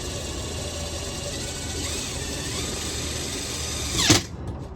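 A cordless screw gun running steadily, driving a lag screw to fasten a light socket to a plastic blow mold. It stops about four seconds in with a sharp, loud burst.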